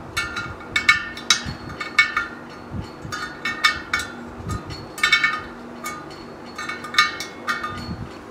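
A spoke wrench clinking against the steel spokes and nipples of a laced motorcycle wheel as the spokes are tightened to true the rim. It makes a dozen or so short, ringing metallic clinks at irregular intervals.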